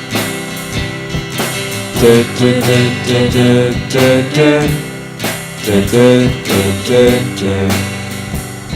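Music: an instrumental stretch of a song, with a melodic lead line of short notes over guitar and a steady drum beat.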